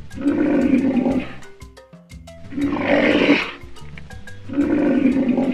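Rhinoceros calling: three loud, rough calls about a second each, spaced about two seconds apart, over light background music with plucked notes.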